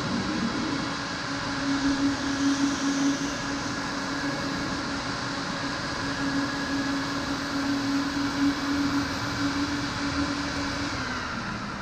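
A machine's motor running with a steady hum, then dropping in pitch as it winds down near the end.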